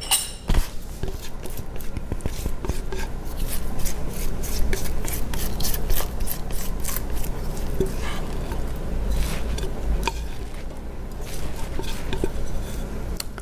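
A spatula scraping thick cake batter out of a mixing bowl in quick, repeated strokes, with a few light knocks against the bowl.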